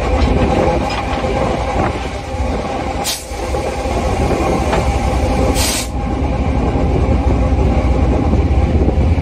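Loaded freight train rolling, heard from between two cars at the coupler: a steady rumble of wheels on rail with a steady tone above it. Two short bursts of hiss come about three and six seconds in.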